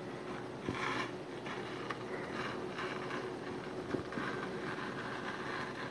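Steel spoon scraping and scooping through frozen vanilla ice cream in a plastic bowl: several short scrapes, with a longer one near the end, over a faint steady hum.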